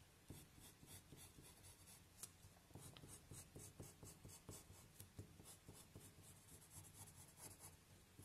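Faint scratching of a pencil on paper in short, quick repeated strokes as circles are traced over.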